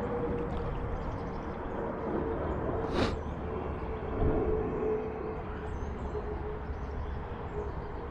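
Steady rushing of creek water, with one sharp click about three seconds in and faint high chirps.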